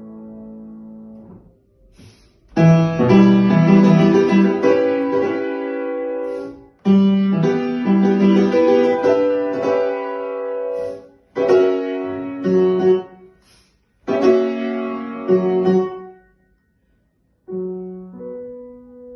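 Piano music played in separate phrases, each breaking off with a short silence before the next; the longest pause comes near the end.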